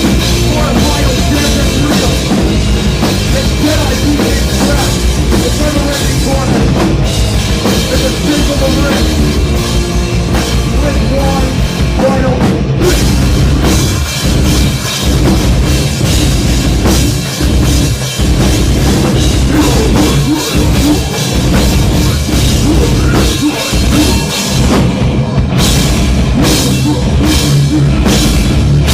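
Loud rock music with a full drum kit, heavy and punk-leaning, played without singing.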